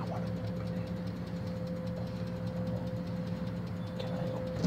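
Cooling fans of an HP 5890 Series II gas chromatograph running, a steady hum with a thin constant tone above it; the fans are working normally.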